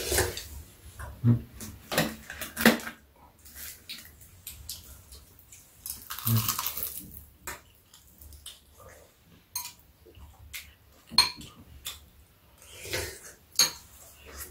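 Metal spoons and chopsticks clinking and scraping against ceramic bowls during a meal, a scattering of separate clinks. About six seconds in there is a louder noise lasting about a second.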